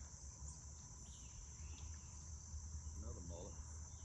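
A steady, high-pitched chorus of insects from the riverside woods, with a low rumble underneath.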